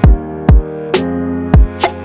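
Electronic background music with a steady beat: deep kick drums, snare hits and sustained synth chords.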